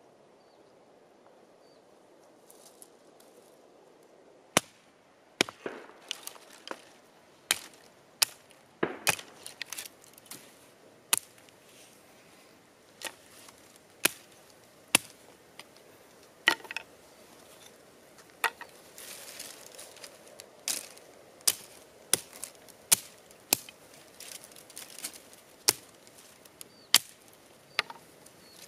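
Small hatchet chopping dry branches: sharp, irregular chops about once a second, starting about four seconds in.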